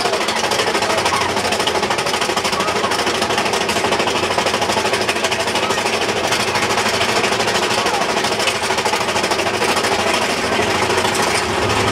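Big Thunder Mountain Railroad mine-train coaster's lift chain and anti-rollback ratchet clattering in a fast, steady rhythm as the train is hauled up the lift hill.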